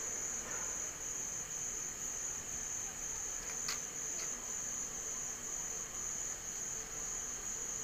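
Crickets chirping in a continuous high-pitched trill, with a faint click or two a little before the middle.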